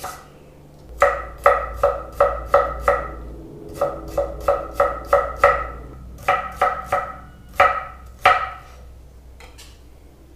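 Chef's knife chopping potato into fine matchstick strips on a wooden cutting board. The strokes come in quick runs of about three to four a second, each with a short ring, and the runs are separated by brief pauses.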